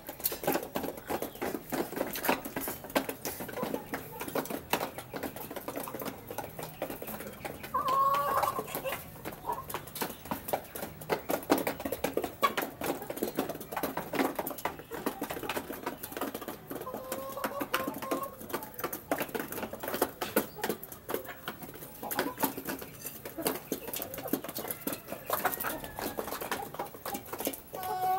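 Half-grown chickens pecking feed off the floor: a dense, irregular patter of beak taps, with a few short calls from the birds about eight seconds in, around eighteen seconds and near the end.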